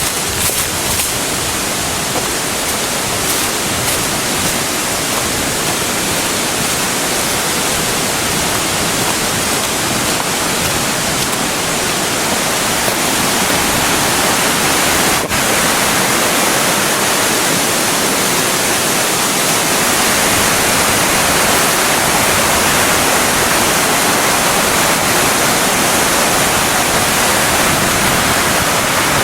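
Waterfall pouring, a steady loud rush of falling water that gets slightly louder about halfway through.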